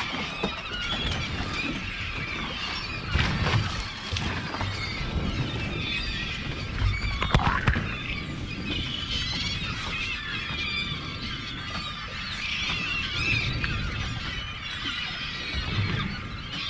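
A large flock of gulls calling over feeding striped bass, a constant tangle of high squealing cries, with wind gusting on the microphone.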